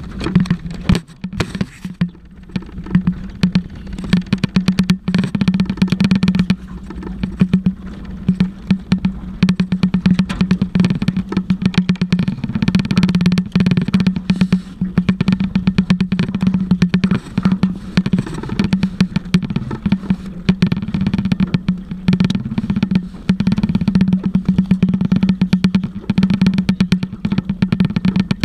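A boat's motor running steadily, a constant low hum, with frequent knocks and rubbing close to the microphone.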